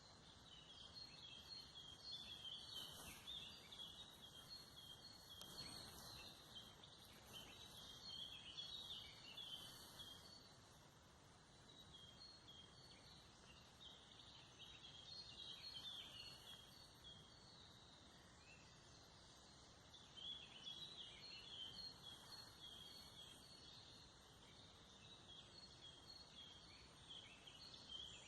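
Faint forest birdsong: many short, high chirps in bursts that come and go, over a soft background hiss.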